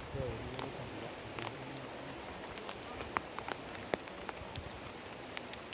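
Rain falling steadily as an even hiss, with frequent sharp, irregular taps of single drops striking close by.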